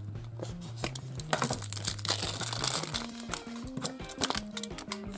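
Printed plastic wrapping crinkling and tearing as it is pulled off a toy surprise ball, loudest in a run of crackles from about one and a half to three seconds in. Background music with a steady bass line plays under it.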